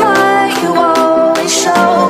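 Electronic pop music with a steady beat and a melodic lead line, in an instrumental stretch of the song.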